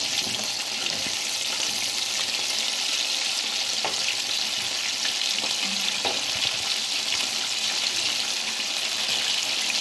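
Flour-coated chicken pieces deep-frying in hot oil in a kadhai: a steady sizzle with a few faint clicks.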